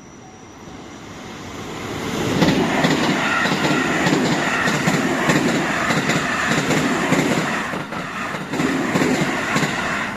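A JR Kobe Line train passing close by, its wheels clattering rhythmically over the rail joints. It swells about two seconds in and stays loud, then starts to fall away near the end.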